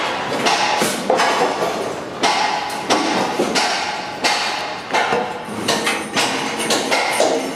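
Hammer blows on aluminium formwork: a run of sharp metallic knocks with a short ring after each, one or two a second at uneven spacing.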